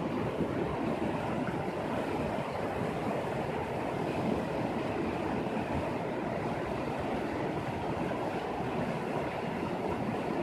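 Shallow mountain river rushing over rocks and stones, a steady, unbroken sound of flowing water.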